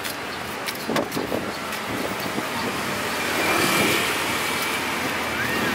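A motor vehicle passing on the street, growing louder to a peak a little past halfway and then easing off. A few short knocks about a second in come from a knife slicing pineapple by hand over a steel tray.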